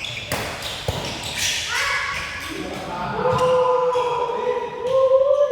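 Two sharp knocks, typical of a shuttlecock struck by badminton rackets, then a person's long drawn-out shout held on one pitch for about two seconds near the end.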